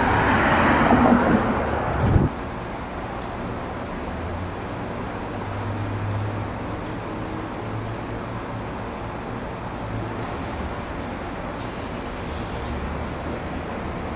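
Steady road-traffic noise of an outdoor urban background, with a low hum and a faint high-pitched hiss coming and going. For about the first two seconds a louder, rougher noise lies over it and then stops abruptly.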